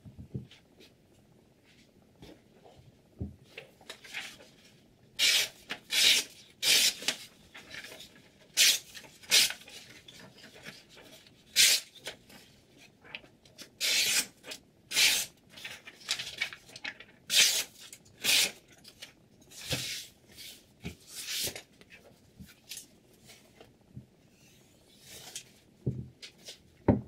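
A freshly sharpened chef's knife slicing through a sheet of paper held in the hand: a series of about fifteen short, crisp swishing cuts, a test of the edge's sharpness. A couple of light knocks near the end.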